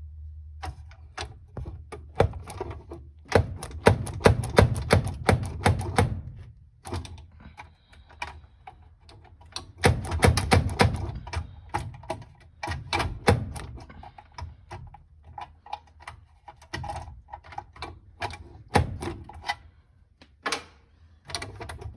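Ford Bronco glovebox latch being worked by hand: a run of clicks and rattles, with two dense bursts of rapid clicking about three to six seconds in and again around ten to eleven seconds in. The latch is sticking and won't release the glovebox door.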